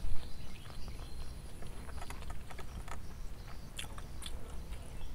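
Bare fingers mixing and squeezing mashed tempeh, sambal and fried vermicelli in a stone mortar (cobek), then gathering a handful: soft, irregular squishes and small clicks of fingers on food and stone.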